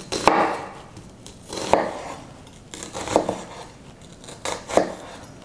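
Chef's knife slicing into a halved onion on a cutting board, a crisp crunch as the blade goes through the onion layers, five strokes.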